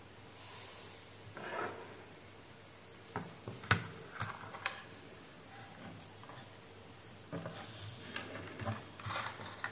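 Handling noise from a car instrument-cluster circuit board being shifted and tipped up on a workbench: scattered light clicks and knocks about three to five seconds in, and rustling near the start and again near the end.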